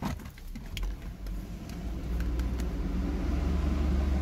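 A low steady rumble that builds over the first two seconds, with a few light clicks near the start.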